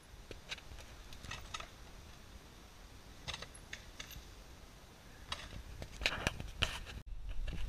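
Dry fallen leaves crackling and rustling in irregular, scattered clicks, as from tyres or feet moving through a leaf-covered forest floor. Near the end the sound cuts to a louder low rumble.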